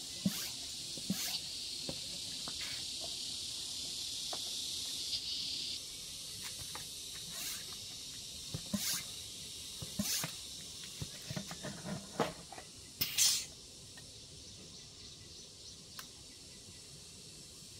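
A steady, high insect buzz that stops about six seconds in, with scattered light clicks and knocks from a hand air pump being handled at a motorbike wheel, and a short hiss of air about thirteen seconds in.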